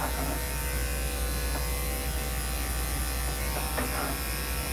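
Corded electric dog grooming clippers running with a steady hum.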